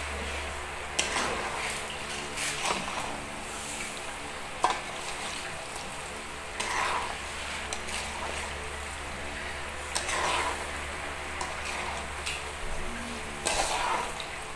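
Bananas deep-frying with brown sugar in oil in an aluminium wok, sizzling steadily while the sugar caramelises into a coating. A spatula scrapes and knocks against the wok every second or few as the bananas are stirred and turned.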